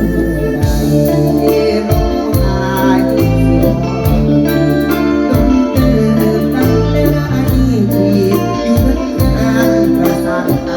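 Live mor lam sing band music: bass and drums keep a fast, steady beat under a sustained lead melody.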